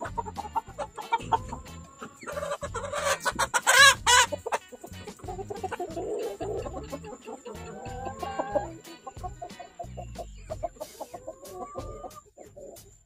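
Chickens clucking in short calls, the loudest about four seconds in, among light knocks of plastic drinkers being handled and set down.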